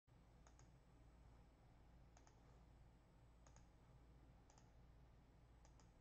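Faint computer mouse clicks, five in all, each a quick double tick, about one to one and a half seconds apart, over a low steady hum.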